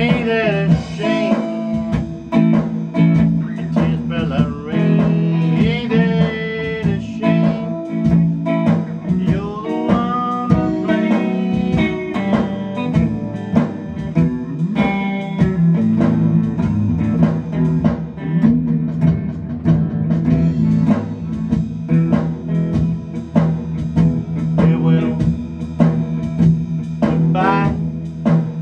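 Electric guitar playing a blues lead with frequent string bends, over a backing track with drums and a steady bass line.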